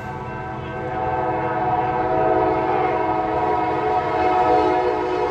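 Train horn blowing one long, steady chord, getting louder about a second in as the train approaches.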